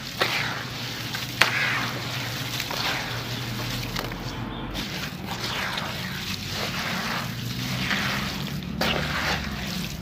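Wet sand-cement concrete crumbling and dropping into a tub of muddy water: repeated gritty squishes and splashes, with a sharp snap about a second and a half in.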